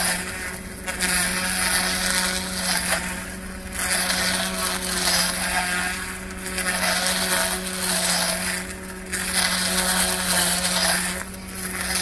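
A grass trimmer runs at a steady high speed, its motor holding one even tone. It is swept back and forth through tall, dense weeds, and the cutting noise swells and eases every few seconds with each pass.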